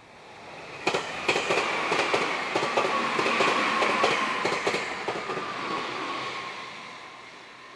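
Meitetsu electric train passing close by: wheels clacking over rail joints in a quick run of clicks for about four seconds, over a motor whine that slowly falls in pitch. The sound swells in and fades away as the train goes by.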